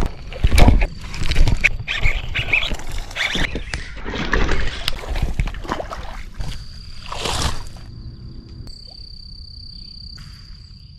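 Loud, irregular water splashing and knocks, thinning out over the second half, with a steady high-pitched whine that comes in about six seconds in.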